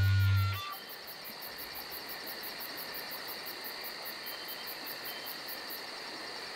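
A sustained music chord fades out in the first half second. Then comes night insect ambience: crickets chirping in a rapid, steady, high-pitched pulse, about five chirps a second, over a faint hiss.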